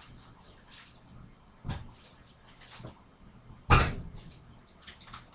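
Objects being handled and moved about in a kitchen: soft rustling, a short knock a little under two seconds in and a louder sharp thump past the halfway point.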